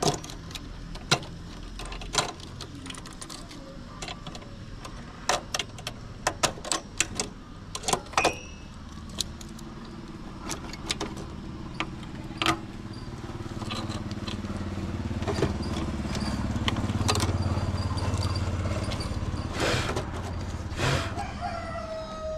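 Plastic SC fibre-optic connectors and drop cables clicking and rattling as they are unplugged and handled, a string of sharp clicks throughout. A low motor rumble swells past the halfway point and eases near the end.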